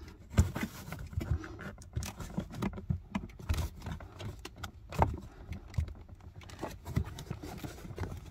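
Plastic footwell side trim panel being pulled and worked loose by hand, with irregular clicks, knocks and rattles of its plastic clips and rustling against the carpet.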